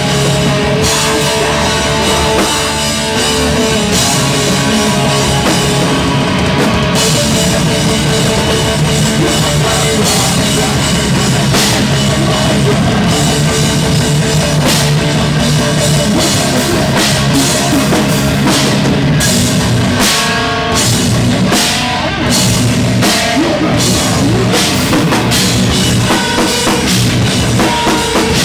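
A loud live heavy rock band playing: electric guitars, bass guitar and a drum kit pounding together. There are short stop-start hits about twenty seconds in.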